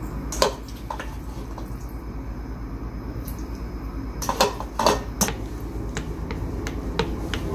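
Slotted spoon knocking and scraping against a stainless steel colander and a plastic mixing bowl as drained potato cubes are scooped into beaten eggs. The loudest cluster of knocks comes about four to five seconds in, over a steady low hum.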